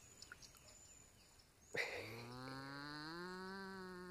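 A trapped nutria giving one long, low moo-like call, starting a little under two seconds in; its pitch rises for about a second and then holds steady.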